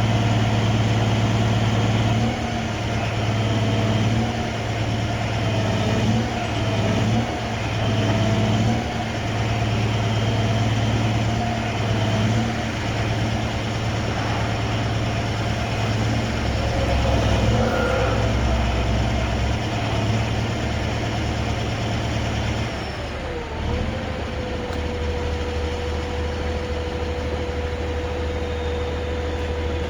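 Heavy rotator tow truck's diesel engine running, its note shifting a few times, then dropping about three quarters of the way through to a lower steady hum with a thin whine over it.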